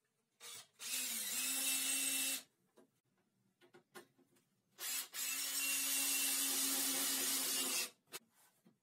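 Cordless drill running in two steady runs, a short one about a second in and a longer one of about three seconds in the middle, as it works into a thin metal sheet laid over a wooden pallet frame. Small clicks and knocks between the runs.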